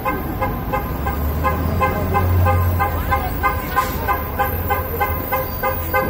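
An MTA city bus sounding a rapid, even train of short horn-like beeps, about three a second, over the low hum of its running engine.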